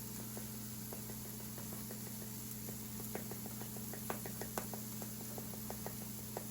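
Burgers frying in a pan: irregular small pops and ticks of spattering grease, thicker around the middle, over a steady low hum.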